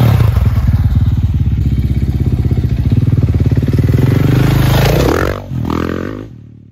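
KTM 450 SX-F single-cylinder four-stroke engine running through an FMF RCT titanium exhaust, holding a steady throttle. Near the end it revs up twice briefly, then fades out.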